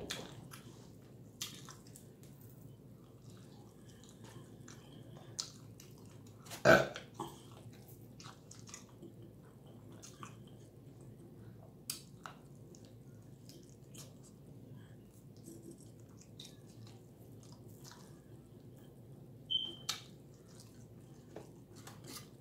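Close-up mouth sounds of a person eating chicken wings: scattered wet clicks and smacks of chewing and biting, with one loud burp about seven seconds in.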